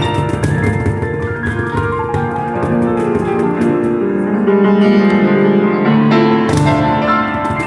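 Piano and cajon duo playing an instrumental live on a Kawai piano, fast piano chords over sharp hand-drum hits. The percussion drops out about three seconds in, leaving held piano chords, and comes back near the end.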